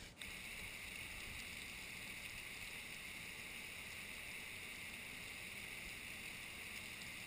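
Steady, faint rush of storm runoff falling as waterfalls off sandstone canyon walls during a flash flood, an even hiss that cuts in abruptly and cuts off abruptly.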